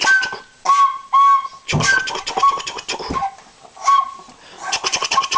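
Trumpet blown in short toots on two steady pitches, imitating a train whistle, with a sputtering, puffing stretch in the middle and a fast run of toots near the end.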